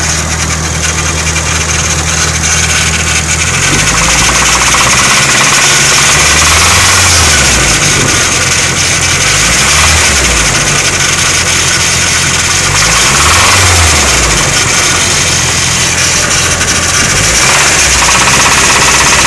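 Nissan SR20 2.0-litre four-cylinder engine idling, then revved several times and falling back to idle between revs. There is a knock that the owner suspects may be rod knock.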